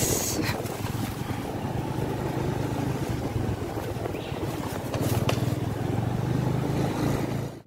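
Motor scooter riding along, its small engine running steadily under road noise.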